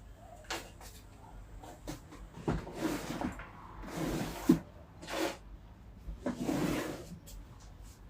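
A small retail box and its packaging being opened by hand: irregular rustling and scraping with light clicks, and one sharp click about four and a half seconds in.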